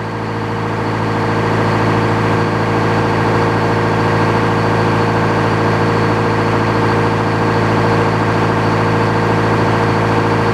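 Engine driving an old Frick sawmill running steadily. It grows louder over the first two seconds or so, then holds at a constant speed.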